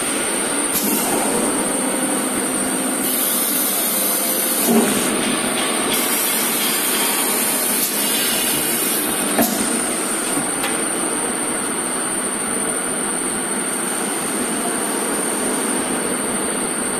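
Horizontal glass drilling machine drilling through a glass sheet with water coolant: a steady grinding, rushing noise over a high steady whine. Two brief knocks come about five seconds in and again about nine and a half seconds in.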